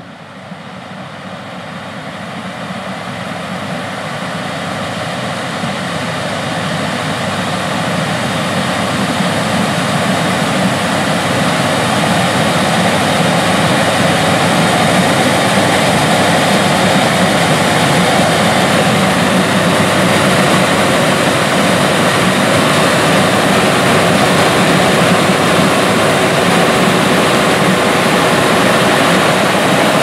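John Deere S780 combine harvesting corn, its engine and threshing machinery running with a steady, dense rumble that grows louder over the first dozen seconds as the machine comes closer, then holds steady.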